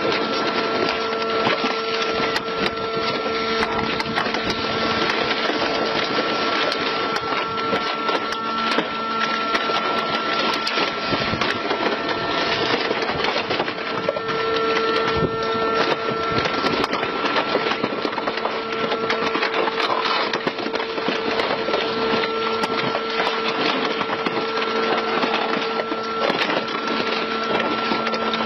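Industrial rotary shredder tearing up a scrapped car body: a dense, continuous crackle and crunch of metal over a steady machine hum.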